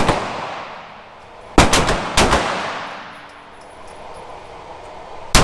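Semi-automatic pistol firing single shots, about five in the span, irregularly spaced with two close together, each trailing off in a long echo.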